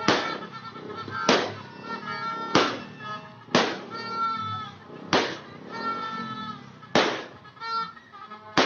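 Sharp bangs of New Year fireworks or firecrackers, one every second or two, over music with a held melody.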